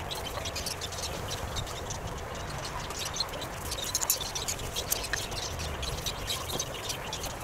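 Garden background with small birds chirping in short, high notes, and occasional light clicks and scuffs from work on a wooden frame.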